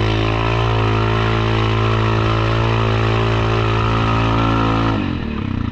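Yamaha Kodiak 700 ATV's single-cylinder engine revving up and held at high, steady revs under load as it pushes through a mud hole, dropping off sharply about five seconds in as the throttle is let off.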